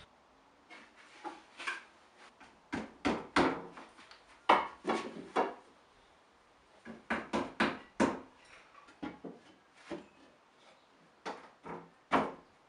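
Irregular wooden knocks and clatters: plywood shelves being shifted in a plywood bookshelf frame, and a long spirit level being set against its uprights. The knocks come in clusters, and the loudest falls about four and a half seconds in.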